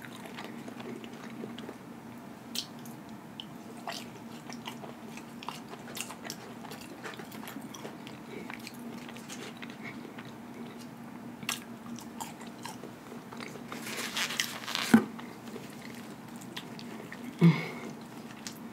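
Close-miked chewing of French fries, with small wet mouth clicks and smacks over a faint steady hum. A louder rustle comes about fourteen seconds in, and a sharp knock near the end.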